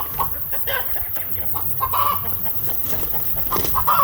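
Chickens clucking: short pitched calls every second or two, over a steady low background hum.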